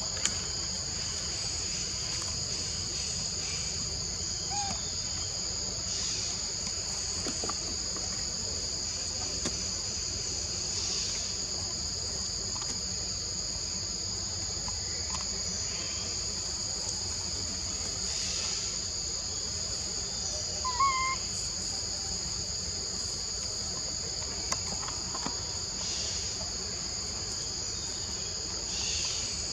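Steady high-pitched chorus of forest insects, a constant two-toned buzz, with a brief chirping call about two-thirds of the way in.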